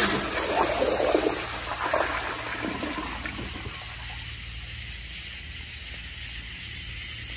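Flushometer-valve flush of a 1992 Kohler Kingston Waterguard toilet bowl: a rush of water swirling down the bowl, loudest in the first two seconds and dying away about four seconds in, leaving a faint trickle.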